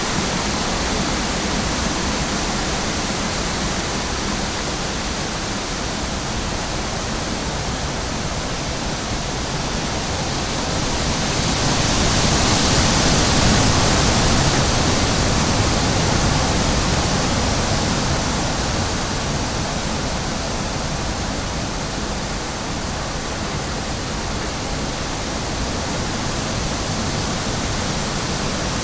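Steady rushing nature ambience, an even noise with no distinct events, swelling louder for several seconds near the middle before settling back.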